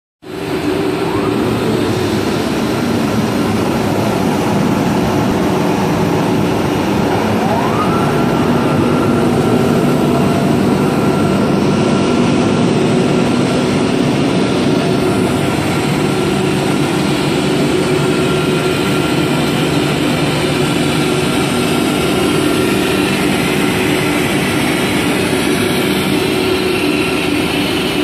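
PE pipe extrusion line machinery running, a loud, steady industrial hum with a low drone. About seven seconds in, a whine rises in pitch and then holds steady for several seconds.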